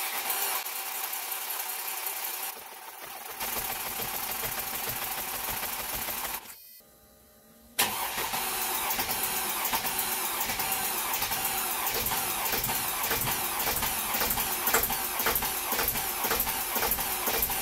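Mercedes ML350 CDI's OM642 3.0 V6 diesel running at idle with a steady, evenly pulsing beat, on its run after the oil cooler seal replacement and the oil and coolant refill. The sound drops to near silence for about a second, some six and a half seconds in, then comes back abruptly.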